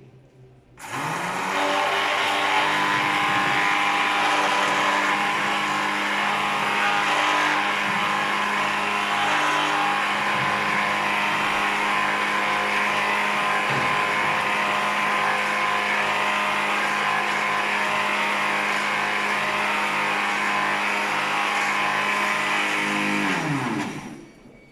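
Blender motor running at full speed, milling sugar. It spins up with a rising whine about a second in, runs steadily with a loud hiss over the whine, and winds down with falling pitch near the end.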